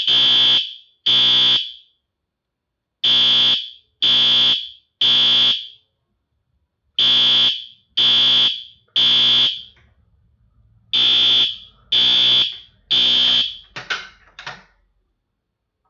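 System Sensor SpectrAlert Advance P2R fire alarm horn sounding the temporal-3 (code 3) evacuation pattern: three half-second blasts, a pause of about a second and a half, then the next three, repeated. Near the end come a few shorter blasts, and then it stops.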